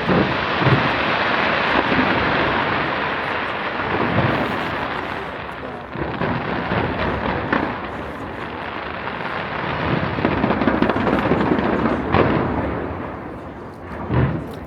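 Aerial fireworks bursting: a dense, continuous crackle of exploding shells, with a few deeper booms standing out from it.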